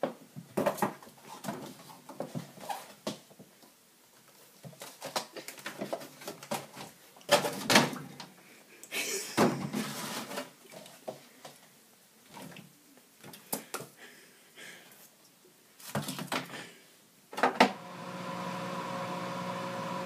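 Scattered clinks, knocks and rustles of containers being handled in a refrigerator. Near the end a sharp click, then a microwave oven runs with a steady hum.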